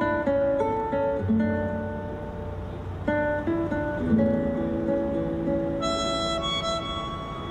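Instrumental music of plucked acoustic guitar notes that ring on and overlap. A brighter, higher held melody line comes in about six seconds in.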